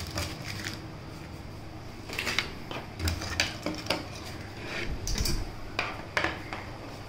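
Hands handling unboxing contents: a thin plastic accessory bag crinkling and USB-C cable plugs clicking and tapping against a wooden table, in irregular bursts, most of them between about two and six and a half seconds in.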